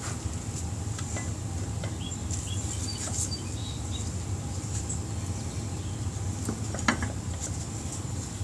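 A few light metallic clicks and taps from handling the wheel parts, the sharpest about seven seconds in, over a steady background hum.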